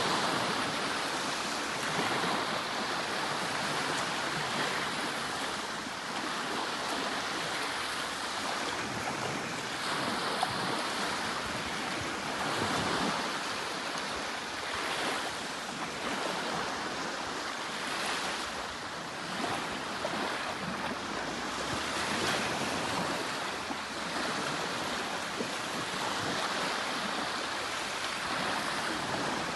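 Sea surf washing on a shore: a continuous rushing noise that swells softly every few seconds as waves break.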